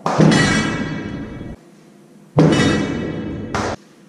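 Background music of heavy percussion: a loud drum hit at the start and another about two and a half seconds in, each ringing out and fading before cutting off.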